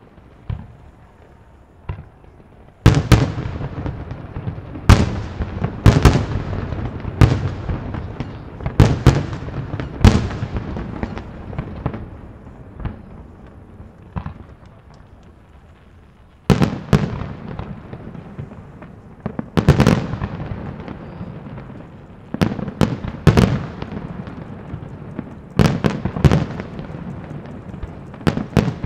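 Aerial fireworks display: shells bursting in sharp, echoing bangs, coming in close volleys from about three seconds in, with a lull of a few seconds in the middle before the bangs start again.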